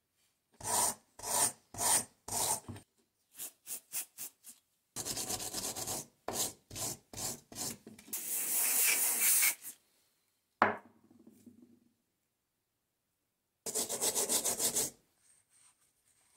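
Steel wool scrubbed back and forth against a rusty metal part of an old hand drill to strip the rust. It comes as bursts of rubbing strokes, with a longer unbroken scrub around eight seconds in. A single sharp knock with a brief ring follows, then another run of quick strokes near the end.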